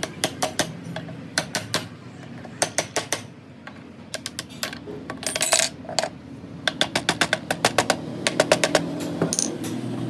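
Sharp metal-on-metal taps and clinks in quick runs of several strikes a second, with a short scraping burst about halfway through: metal tools or parts being worked on.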